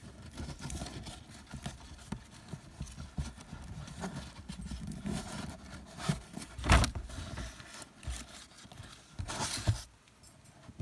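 Hands handling and threading Venetian blind cord close to the microphone: irregular rustling and small knocks, with a loud thump about two-thirds of the way in and another near the end.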